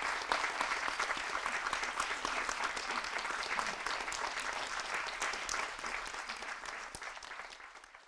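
Audience applauding, a dense clatter of many hands clapping that fades out near the end.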